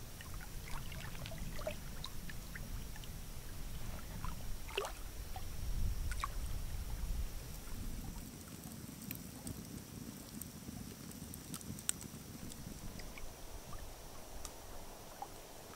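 Quiet evening ambience by a lake: a low rumble that is stronger in the first half and fades after about eight seconds, with scattered faint crackles and clicks and a faint steady high-pitched whine.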